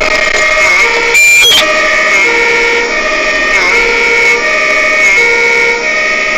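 Two-tone fire engine siren alternating between a high and a low note, heard loud from inside a fire engine's cab. A brief loud burst cuts across it about a second in.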